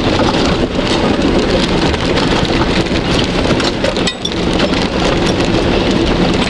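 Inside the cab of a 4x4 driving through deep mud and puddles: muddy water spraying and pattering hard against the windscreen and body over the steady drone of the engine under load, easing for a moment about four seconds in.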